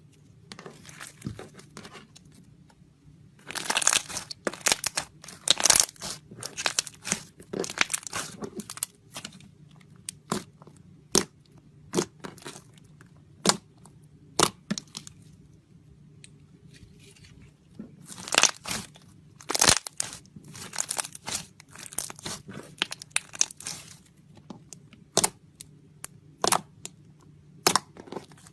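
Slime being squeezed and stretched by hand, crackling and giving off sharp pops. There are two long runs of dense crackling, with single pops in between and toward the end.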